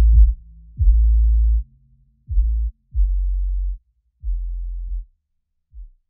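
Electronic outro music made of deep bass booms: about five heavy hits, each opening with a quick falling drop and holding briefly before cutting off, with a short faint one near the end.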